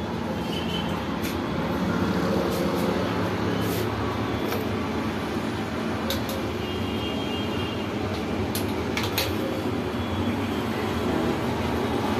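ATM keypad being pressed: short high beeps and a scatter of sharp clicks over a steady low hum.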